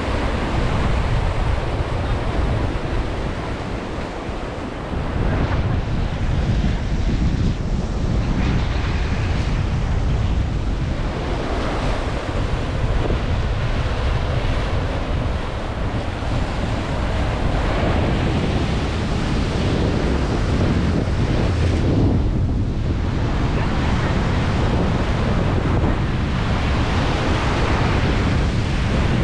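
Sea surf breaking and washing over a rock jetty, rising and falling as the waves come in, with strong wind buffeting on the microphone.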